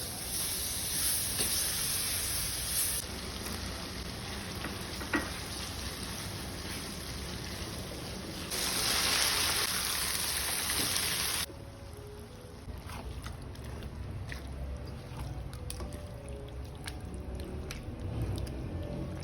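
Mutton cooking over heat with a steady hiss, cut into segments that change abruptly. About 11 seconds in it drops to a quieter background with scattered light clicks.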